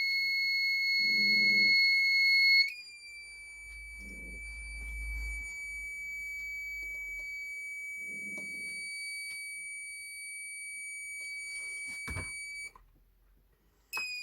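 Alarm buzzer on a DIY breathalyser kit sounding continuously as one steady high-pitched tone, with no alcohol present. It is a false trigger while the MQ3 sensor has not yet warmed up, which the builder puts down to heat left in the sensor from soldering. The tone drops in loudness a few seconds in, cuts out about a second before the end, then starts again.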